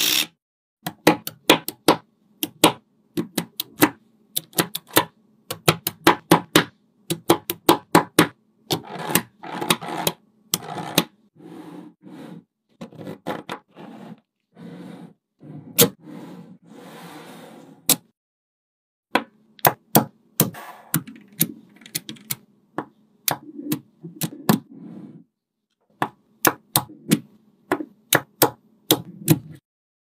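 Small magnetic balls clicking and snapping together by hand, in quick clusters of sharp clicks as strips and walls of them are laid and joined.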